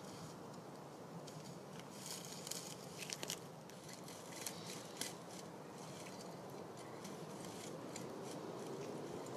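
Faint scattered clicks and crackles, bunched together a couple of seconds in, over a low steady rumble.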